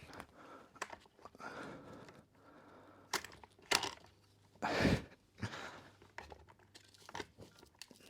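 Handling noises as a leg is straightened out: irregular rustling with a few sharp clicks and knocks, the loudest rustle about five seconds in.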